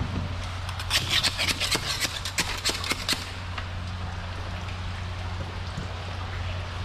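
A hand tool scraping and knocking against a crusted concrete piling in a quick run of sharp scrapes, about six a second for two seconds, breaking shell growth loose as chum for sheepshead. A steady low hum runs underneath.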